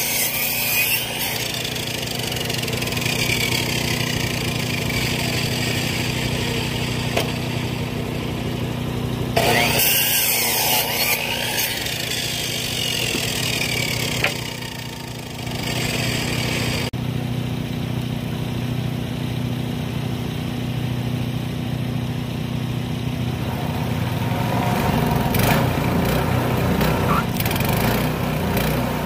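The small gasoline engine of a Timbery M100 portable bandsaw mill running steadily while the band blade cuts through a log as the mill head is pushed along its track. There is a brief drop in loudness about halfway through.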